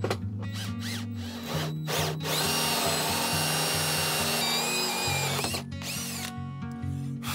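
Cordless drill driving a hole saw into a wooden plank countertop, running steadily with a whine for about three seconds, starting about two seconds in, over background music.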